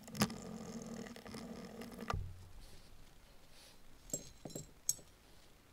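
A steady low hum cuts off with a knock about two seconds in. Then come light clicks and taps of small metal parts as the nitro engine's finned cylinder head and its screws are handled and set down.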